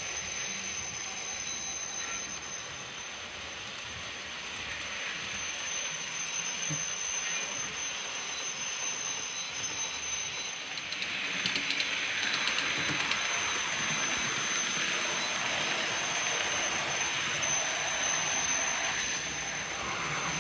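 Bachmann OO-gauge Midland Blue Pullman model train running on the layout track, wheels rumbling, with a steady high-pitched whine from the rear power car's motor: the sign of a dry motor bearing. It grows louder about halfway through.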